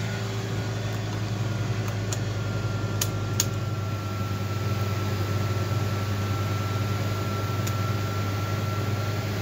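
Ford E-450 bus engine idling steadily in the cold just after a cold start, heard from inside the cab, with the heater blower fan running and a thin steady whine coming in about two seconds in. A few light clicks from the dash controls are heard early on and once near the end.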